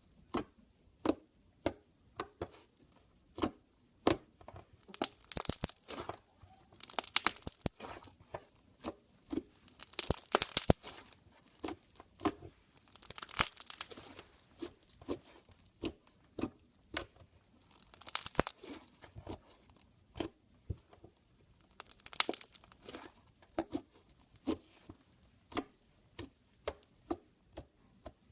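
Slime being squeezed, stretched and folded by hand while colour is mixed in: a steady run of sharp pops and clicks, with louder crackly bursts every few seconds.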